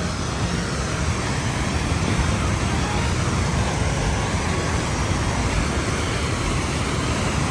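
Wind rushing and buffeting against a phone's microphone: a loud, steady rush with a fluttering low rumble.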